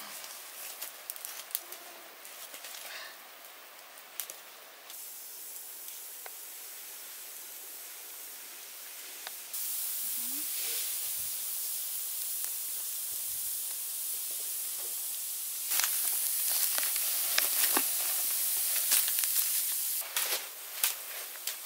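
Green bamboo tubes packed with beef ribs hissing and steaming as they cook on hot charcoal embers, with scattered crackles and pops. The hiss gets louder in steps, and the crackling is busiest near the end.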